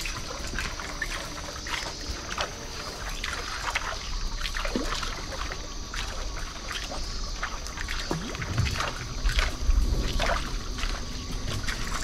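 Repeated small splashes and trickling at the water's surface as a lure is reeled back on a baitcasting outfit, with bass swirling around it, over a steady high hiss.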